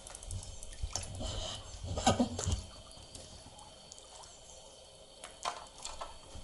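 A stand-up paddle dipping and stroking through lake water: splashes and drips, loudest about two seconds in, with a few more near the end.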